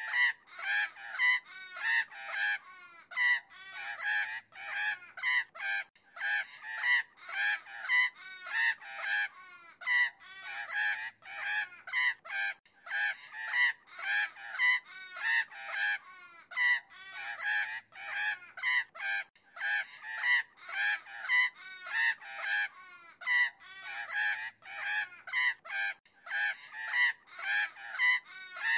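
Magpie chattering: a long run of harsh, rasping calls, one after another with short gaps, about one to two a second. The same pattern of calls repeats every six or seven seconds.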